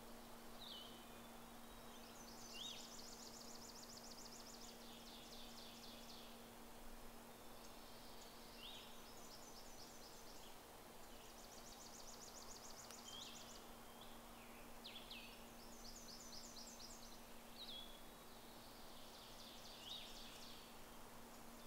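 Faint songbirds singing: a high trill about two seconds long, repeated several times, with short sharp call notes between the trills, over a steady low hum.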